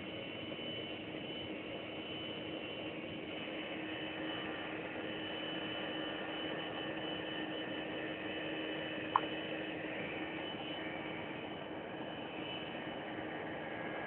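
Steady cabin noise of a climbing airliner: engine and airflow noise with a constant hum. One short click about nine seconds in.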